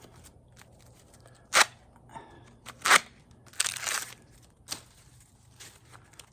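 Corn husks being torn and peeled back from an ear by hand: two sharp cracks about a second and a half and three seconds in, then a crackly tearing rustle.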